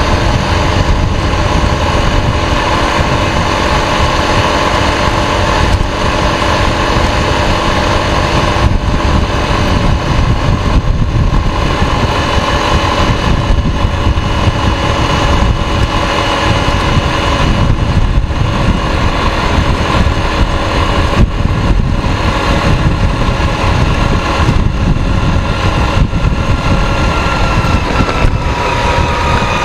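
K-Lion Santa 200 quad bike's engine running at steady road speed, with wind buffeting the microphone. The engine note dips slightly near the end.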